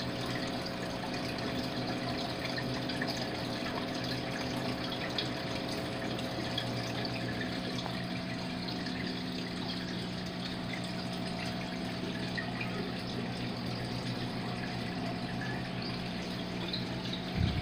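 Fish-tank aeration and filtration: a steady churn of air bubbles and moving water over a constant low electrical hum from the tank's pump. A brief low knock comes near the end.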